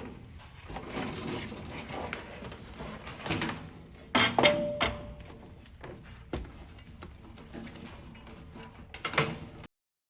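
Knocks and clatter of poultry nest hardware being handled during assembly, with one sharp knock about four seconds in that rings briefly. The sound cuts off abruptly shortly before the end.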